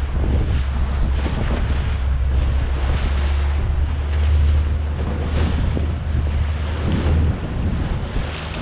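Heavy wind buffeting on the microphone, mixed with the wash and irregular slaps of choppy sea water against the hull of a small aluminium boat. The low wind rumble eases about seven seconds in.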